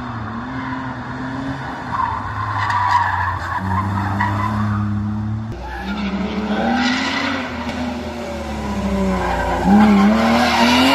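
Race car's engine revving up and falling back several times as it accelerates and brakes through a tight course, with tyres squealing. The sound is loudest near the end.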